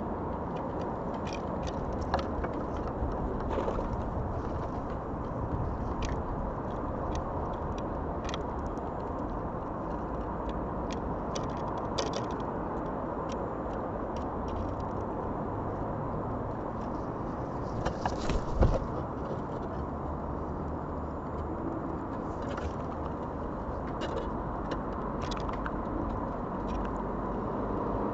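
Steady hum of distant road traffic, with scattered light ticks and scrapes and a louder clatter about eighteen seconds in.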